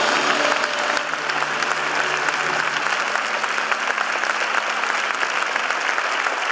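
A large theatre audience applauding, a dense and steady clapping.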